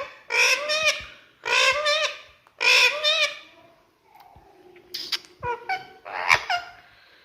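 Indian ringneck parrot calling: three loud, wavering squawks in the first few seconds, then a few shorter, quieter calls.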